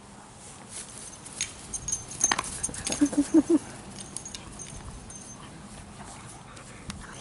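A large black-and-tan dog at play gives three short, quick whines about three seconds in, just after a few sharp clicks.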